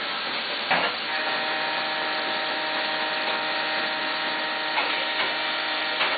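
Mazak VTC250-50 CNC vertical mill running: a steady multi-toned whine comes in about a second in over a constant hiss, with a few sharp clicks.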